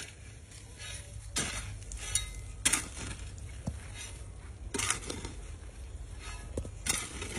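Metal hoe blade striking and scraping into gravelly soil while a pit is dug out, several separate strokes a second or two apart.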